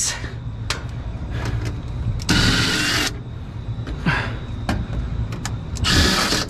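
Cordless Milwaukee impact driver hammering on screws that have sat in the wet, in two short bursts: one about two seconds in, one near the end. Sharp clicks come between the bursts, over a steady low hum.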